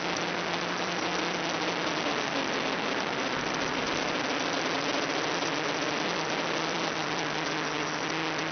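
Steady static hiss from an analog FPV video receiver's audio channel recorded by the DVR, with a faint low hum under it.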